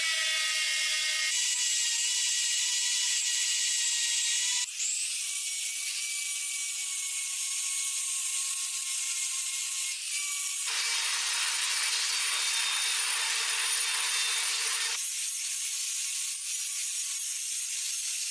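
Power-tool metalworking: a steady high whine over a scraping hiss, changing abruptly four times as one take cuts to the next.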